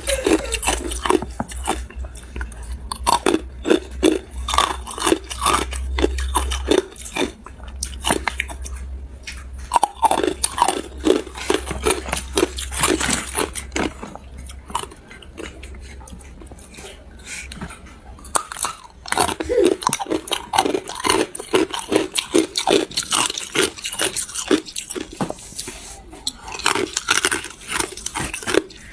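Ice coated in matcha powder being bitten and chewed close to the microphone: a dense, irregular run of sharp cracks and crunches as the ice breaks between the teeth, with a quieter stretch about halfway through.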